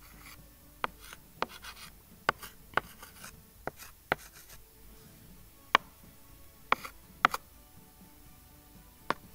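Stylus tapping and scratching on a tablet screen while drawing short strokes. About ten sharp, irregular taps, the loudest a little past the middle, with light rubbing between them.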